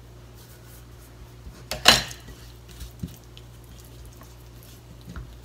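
A metal spoon put down with a single sharp clink and a brief ring, about two seconds in. A few faint taps follow as the salmon fillet is handled on a ceramic plate.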